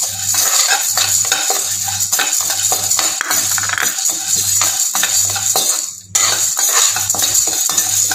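A spatula scraping and stirring dry-roasting toor dal, chana dal and curry leaves around a metal kadai, a steady patter of grains and clicks on the pan, over background music with a steady beat. The sound cuts out briefly about six seconds in.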